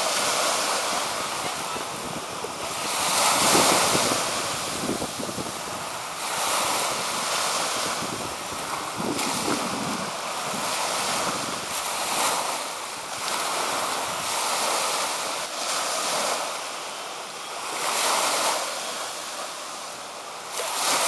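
Small waves breaking and washing through the shallows around a grounded boat's hull. The sound swells and eases every few seconds, with wind buffeting the microphone.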